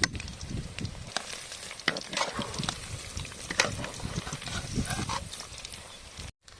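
Masala-marinated chicken pieces deep-frying in hot oil, sizzling, with clicks and knocks of a ladle stirring them in the pan. The sound breaks off briefly near the end.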